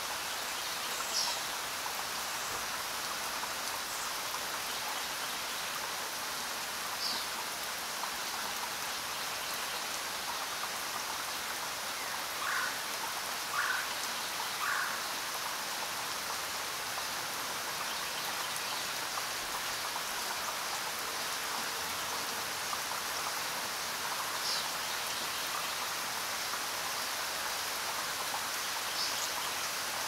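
Steady rain, an even dense hiss, with a few short chirps from small animals scattered through it, among them three calls about a second apart near the middle.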